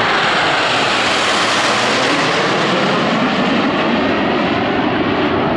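Formation of Canadair CT-114 Tutor jets passing overhead, their single turbojet engines making a loud rushing jet noise. The sound swells to a peak about two seconds in, then slowly fades as the formation moves away.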